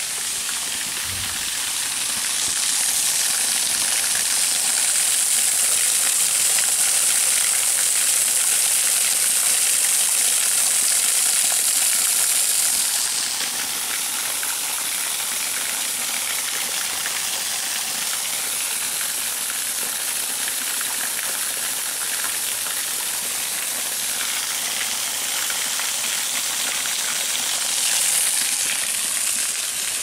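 Waterfall's steady rush of falling water. A louder high hiss rides over it from about two seconds in until about thirteen seconds, and swells briefly again near the end.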